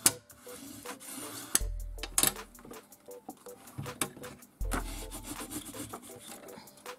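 Sheets of cardstock rubbing and sliding under hands as they are pressed and smoothed flat, with a few sharp taps.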